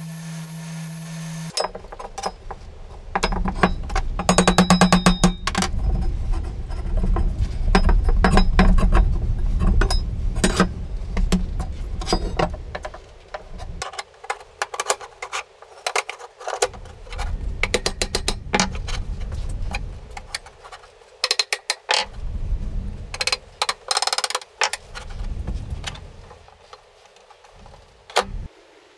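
Steel channel and flat-bar pieces handled on a wooden workbench: repeated metal clanks, clicks and knocks as they are picked up, laid down and slid against each other. A steady hum runs for about the first second and a half.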